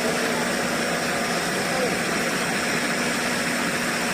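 Steady running of a six-cylinder diesel generator, a constant drone, under the chatter of a crowd.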